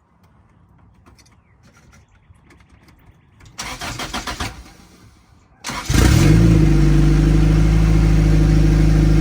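Turbocharged Honda Del Sol engine cranked by the starter without catching, then about two seconds later it fires and settles into a loud, steady idle on its cold start.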